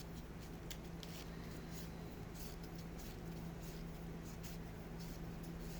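Sandpaper rubbed by hand over the teeth and edge of a laser-cut wooden clock gear: faint, irregular scratching strokes over a steady low hum. It is a final touch-up sanding to take off rough edges where the gear could catch.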